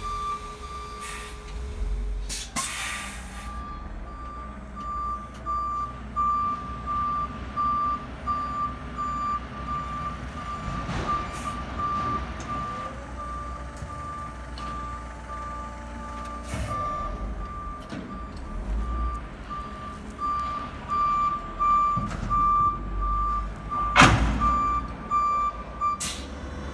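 Reversing alarm of an electric yard tractor beeping steadily at one pitch as it backs under a semi-trailer. There is a burst of air hiss about three seconds in, and a single loud clunk near the end.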